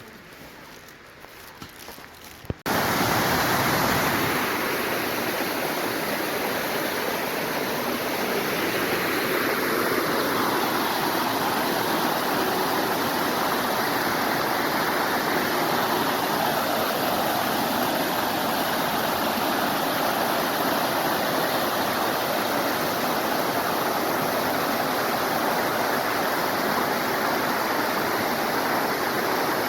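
Mountain stream water rushing steadily close by. It begins abruptly about two and a half seconds in, after a short quiet stretch.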